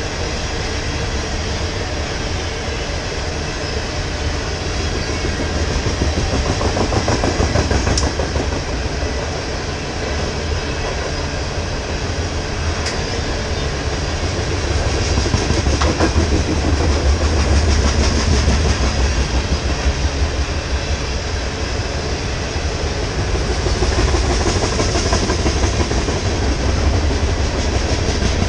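Loaded coal hopper cars of a freight train rolling past, steel wheels rumbling and clicking over the rail joints in a continuous deep rumble that swells and eases a few times.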